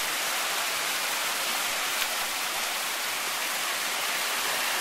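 Waterfall rushing steadily: an even hiss of falling water with no break.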